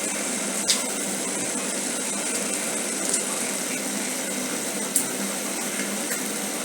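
Pan of noodles cooking on the stove: a steady sizzling hiss, with a few light clicks of a utensil against the pan.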